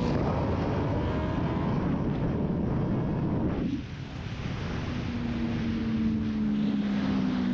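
Suzuki GSX-R sportbike engine pulling hard under acceleration with heavy wind rush on the rider's camera. About three and a half seconds in the throttle closes: the rush drops away and the engine note falls slowly as the bike slows.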